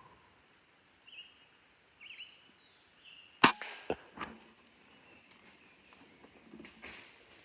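A few short bird chirps, then about three and a half seconds in a single sharp shot from a scoped hunting rifle, followed by a few fainter clicks and rustles.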